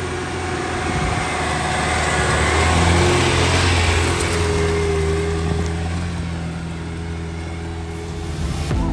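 Off-road 4x4 SUV engine running under load while driving, its note building over the first few seconds and easing off toward the end.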